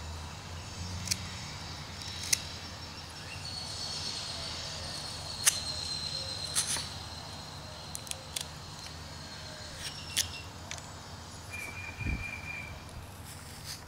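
Carving knife slicing chips off a wooden figure by hand: irregular sharp snicks, one every second or two, over a faint steady hum, with a low bump near the end.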